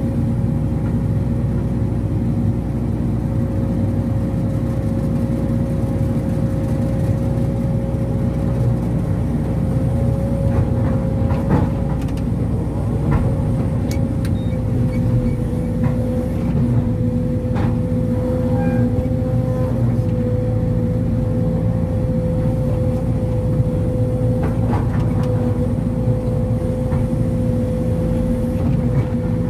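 Sumitomo SH210 hydraulic excavator's diesel engine and hydraulics running under working load as it digs and swings soil into a dump truck, heard from inside the cab: a steady rumble with a constant whine over it. A few sharp knocks come through in the middle.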